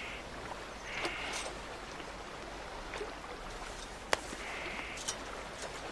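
Quiet outdoor ambience on the water: soft water lapping at the boat, with a few faint clicks and one sharp click about four seconds in.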